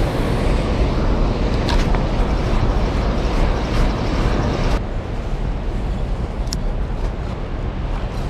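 Steady rush of flowing river water. About halfway through, the sound cuts abruptly to a slightly quieter, duller rush.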